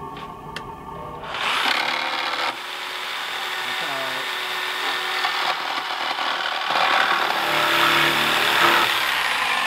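A jigsaw starts about a second in and cuts through a thin western red cedar shingle along a scribed curve, its blade buzzing steadily through the wood and growing a little louder near the end.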